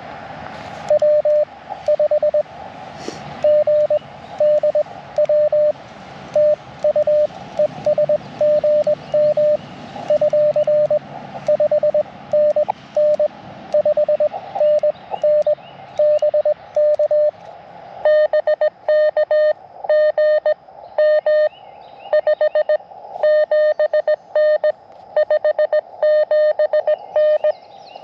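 Morse code (CW) from an Elecraft KX2 transceiver: a single steady mid-pitched tone keyed in dits and dahs over receiver band hiss. About two-thirds of the way through, the hiss between characters drops away and the keying runs on in denser, faster groups.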